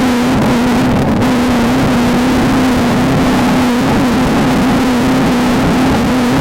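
Engine of a Beetle-based off-road desert race car running hard at nearly steady high revs, its pitch dipping slightly now and then. It is loud, over heavy rushing noise.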